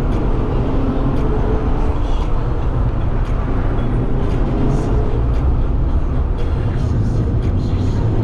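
Mazda MX-5 being driven: steady tyre and engine noise, with short clicks and knocks from the road surface here and there.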